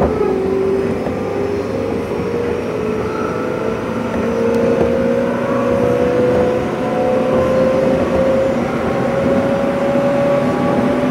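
Electric train running with its traction motors whining, the pitch rising steadily as it accelerates, over the rumble of wheels on the rails, heard from inside the passenger car.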